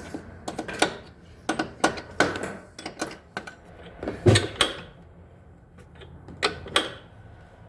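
A wrench tightening a nut and lock washer down on a 4-inch carriage bolt: a run of short, uneven metallic clicks and clanks, the loudest about four seconds in, a lull, then two more near the end.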